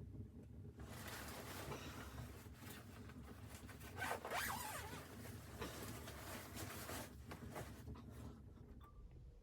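A zipper being pulled over several seconds, loudest about four seconds in.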